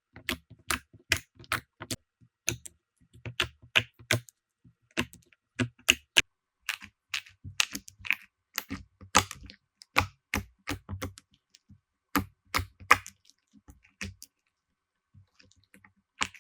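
Slime being squeezed and pressed, giving an irregular string of sharp clicks and pops, a few a second. They thin out about fourteen seconds in, leaving a few faint ones and one last click near the end.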